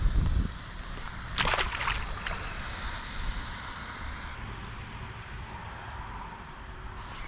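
Wind buffeting the microphone as a steady low rumble, with a short burst of sharp noise about a second and a half in.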